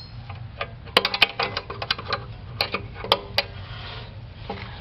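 Metal hand tools clinking and tapping, a run of sharp clicks with a short ring, as wrenches are handled and picked through to tighten a leaking carburetor fitting. A steady low hum lies underneath.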